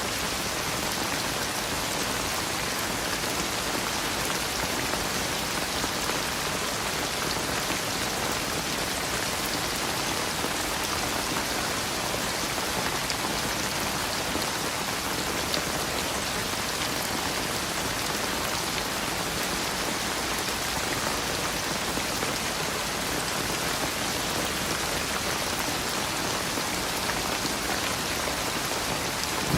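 Steady rain falling, an even, unbroken patter of many drops.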